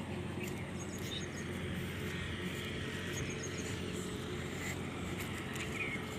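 A steady low engine hum, with faint bird chirps now and then.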